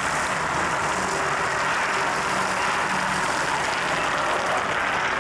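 Ice resurfacing machine running as it drives over the rink ice: a steady, even rushing noise.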